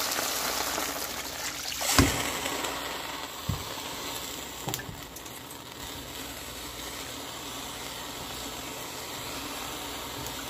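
Water poured into a hot frying pan of sizzling spiced olive-and-small-fish mash, with a sudden splash and hiss about two seconds in. A spatula then knocks twice against the pan, and the sizzle settles to a quieter, steady hiss as the liquid is stirred in.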